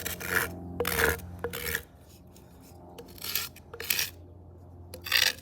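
Dry, hollow Japanese knotweed stalk scraped back and forth against a flat rock to grind one side flat, in short rasping strokes with a pause in the middle.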